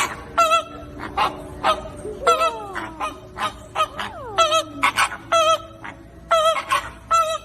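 A flock of flamingos honking: short goose-like calls repeating about twice a second, overlapping one another, with two long downward-sliding calls about two and four seconds in.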